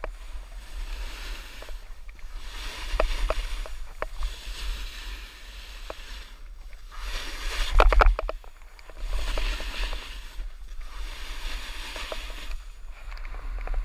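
Snowboard sliding and scraping through slushy spring snow on a mogul run, the hiss swelling and fading with each turn, with wind rumbling on the camera's microphone. A louder rattling scrape with a few sharp knocks comes about eight seconds in.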